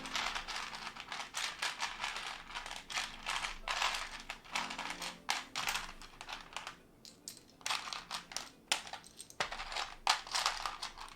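Plastic keycaps clattering as a hand rummages through a loose pile of them: a dense, irregular run of small clicks and clacks.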